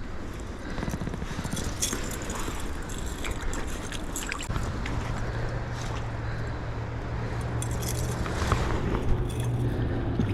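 Small scrapes and clicks of a freshly caught steelhead being handled as its gills are cut, over a steady hiss. A low steady hum comes in about halfway through.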